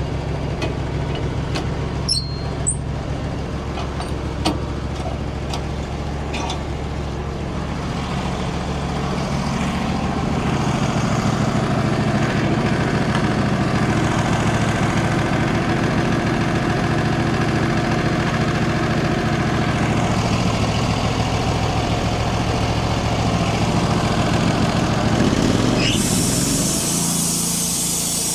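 Wood-Mizer LT15 band sawmill running, with its band blade cutting through a dried black cherry beam to flatten it. The sound grows louder and fuller about a third of the way in. Near the end it shifts with a short rising whine to a thinner, hissing sound.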